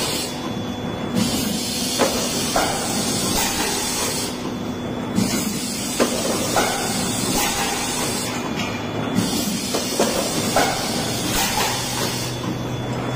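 Pneumatic PET bottle blow moulding machine running through its cycle: a steady hiss of compressed air that drops out for about a second roughly every four seconds, with sharp clacks in between.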